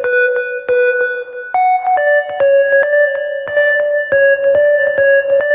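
Electronic dance music: a synth keyboard melody of short, repeated notes, several a second, without deep bass.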